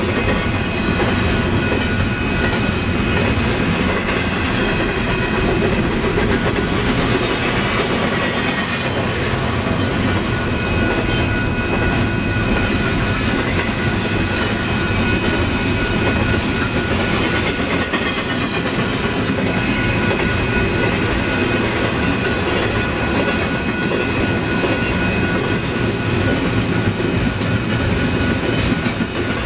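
Double-stack container train's well cars rolling past: steel wheels clattering over the rail in a steady loud rumble, with a steady high-pitched ringing tone over it.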